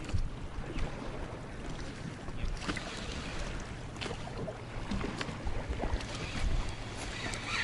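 Wind buffeting the microphone over water moving against a boat, with a few faint knocks and clicks.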